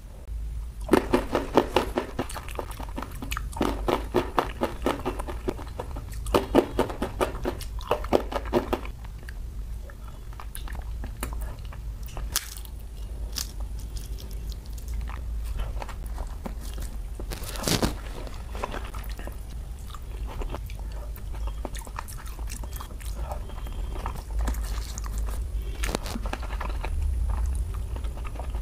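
Close-miked eating by hand: loud crunching of crisp fried banana chips in several bursts in the first nine seconds, then quieter wet chewing and the soft squelch of rice being mixed with curries on a banana leaf, with one more sharp crunch about halfway through.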